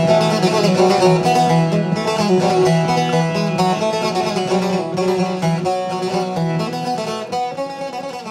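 Instrumental background music led by plucked strings, growing gradually quieter toward the end.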